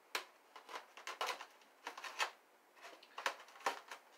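Butter knife cutting packing tape and scraping along a styrofoam box, in a string of irregular short scratches and clicks.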